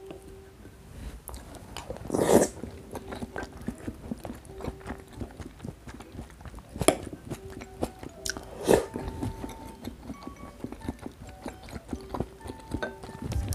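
Close-miked eating: a person chewing soft food, with wet mouth sounds and a few sharp clicks of utensils. The loudest sound comes about two seconds in, and two more sharp clicks come about seven and nine seconds in.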